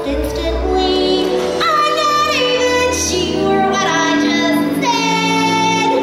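Stage-musical song: a high female voice singing, with long held notes, over instrumental backing.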